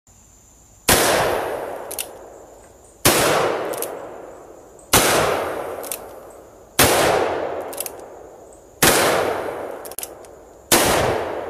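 Six shots from a Glock 21 pistol in .45 ACP, evenly spaced about two seconds apart, each followed by a long echoing decay.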